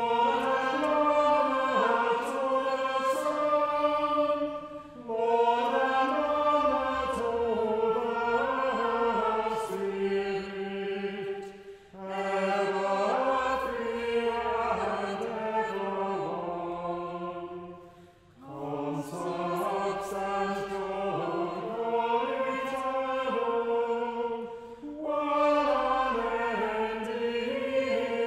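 A small choir of eight voices singing a psalm to Anglican chant in harmony: chords held on the reciting note and then stepping through the cadence. The phrases run about six to seven seconds each, with short breaks for breath between them.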